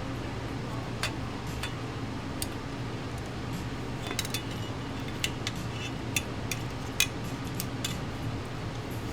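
Small metal parts and tools clicking and clinking on a workbench as they are handled: about a dozen scattered light taps at irregular intervals, over a steady low hum.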